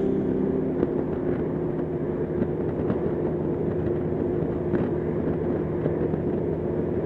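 Honda Gold Wing touring motorcycle cruising at highway speed: a steady rush of wind and road noise with a low, even engine hum.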